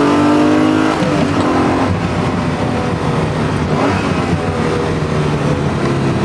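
Modified 3.0-litre V6 of a 1984 Alfa Romeo GTV6 pulling under load, its exhaust note rising, then dropping suddenly about a second in as the revs fall, before running on at a lower, steadier pitch.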